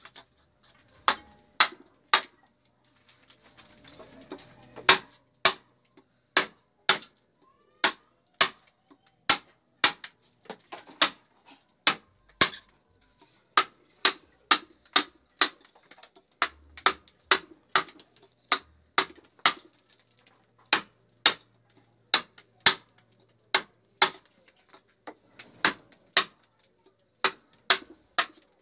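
Wooden mallet striking a chisel handle, the blade cutting into a block of wood: sharp knocks in a steady rhythm of about three blows every two seconds, with a short break about three seconds in.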